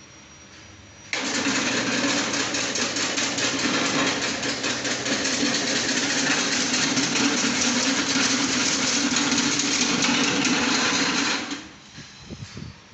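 Electric cassava slicing machine, a 150-watt motor driving the steel blade through a V-belt pulley, switched on about a second in. It runs steadily and loudly with a dense rapid chatter, then is switched off near the end and winds down.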